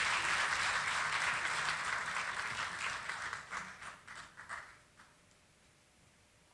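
Audience applause dying away: the steady clapping thins to a few last scattered claps and stops about five seconds in.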